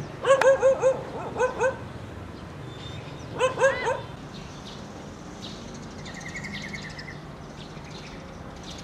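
A dog barking in quick runs of sharp, high barks: four, then two, then three more a couple of seconds later.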